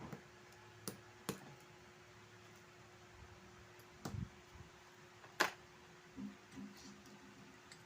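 Small clicks and taps of a wristwatch and small tools being handled during disassembly and cleaning: a few sharp clicks, the loudest about five seconds in, and a dull knock around four seconds, over a faint steady hum.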